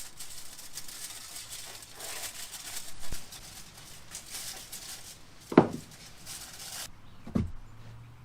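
Rustling and handling noises, with two short sharp knocks about five and a half and seven and a half seconds in, and a faint low steady hum after the rustling stops.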